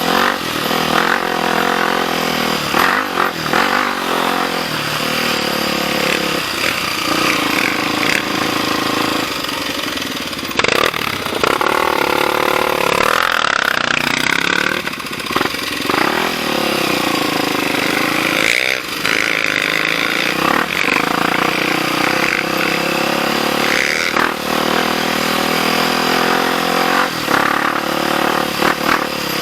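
Dirt bike engine running as it is ridden along a trail, the revs rising and falling again and again with the throttle.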